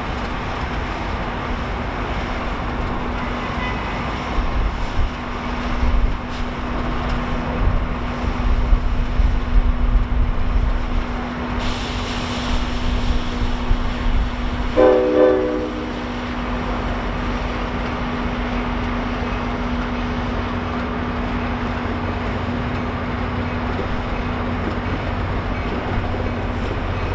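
NJ Transit diesel locomotive hauling passenger coaches slowly past, engine running with a steady low rumble. A burst of hiss about twelve seconds in, and a short horn blast of about a second a few seconds later.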